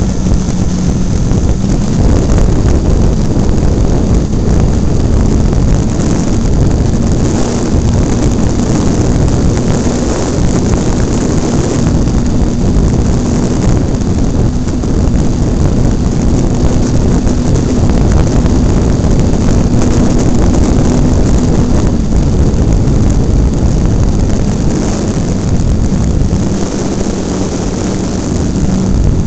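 Wind rushing hard over an onboard camera on a low-flying radio-controlled model airplane, with the faint steady drone of its motor and propeller underneath.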